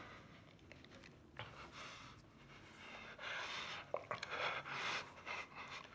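Faint breathing, a few noisy breaths in and out, with a light click about four seconds in.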